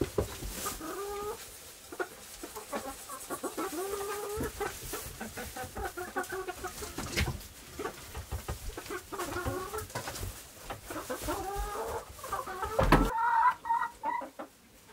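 Domestic hens clucking over and over, with scattered light taps. There is a single loud thump near the end.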